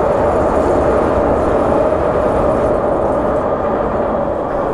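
A train passing: a loud, steady rumble with a constant droning tone, easing off a little in the second half.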